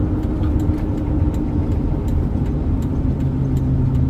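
Pickup truck's engine and road noise heard from inside the cab while driving, a steady loud rumble whose engine note drops to a lower pitch about three seconds in. Faint, regular ticking runs under it.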